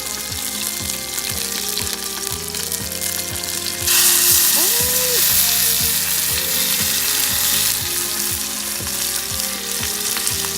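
Hamburger patties frying in a pan with sauce added, sizzling steadily; the sizzle grows louder and brighter about four seconds in.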